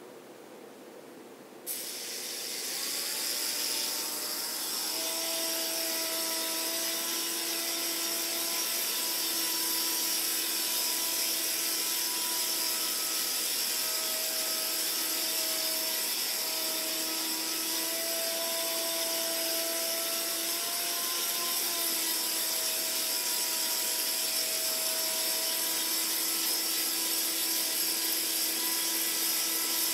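Tiny Hoverbot toy drone's propeller motors starting up about two seconds in, then whining steadily as it lifts off and hovers, the pitch wavering slightly.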